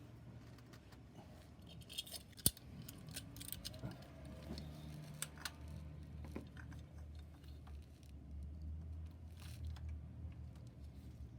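Scattered small metallic clicks and clinks of tools being handled, the sharpest about two and a half seconds in, over a faint low hum.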